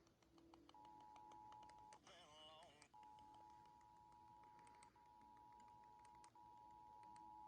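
Emergency Alert System attention signal: the two-tone alert of 853 Hz and 960 Hz sounded together, faint in the recording. It starts about three-quarters of a second in, is interrupted by a short wavering tone at about two seconds, then holds steady with two brief dropouts.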